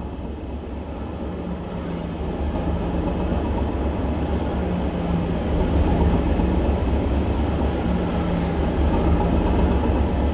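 British Rail DEMU 'Thumper' unit 1317's English Electric diesel engine idling while the train stands, a deep steady throb with a hum that pulses on and off about once a second, getting gradually louder over the first few seconds.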